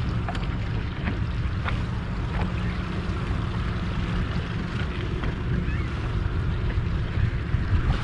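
Suzuki outboard motor running steadily, with low wind rumble on the microphone and a few light clicks.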